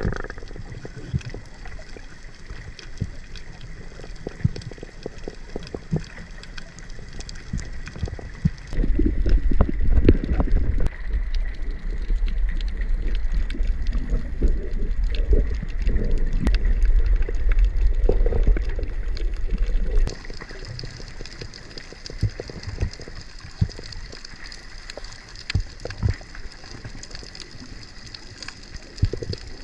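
Underwater sound picked up by a camera in a waterproof housing: a muffled wash of water with scattered sharp clicks and crackles, and a louder low rumble of water movement from about nine seconds in to about twenty.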